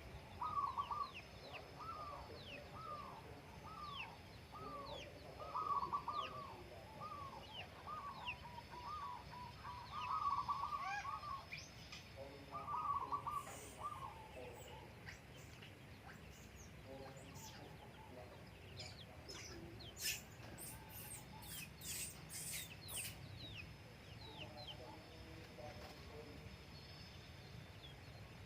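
Zebra dove (perkutut) cooing, a run of quick repeated hooked notes through the first half, over the high, short chirps of small birds. A few sharp clicks come in a cluster past the middle.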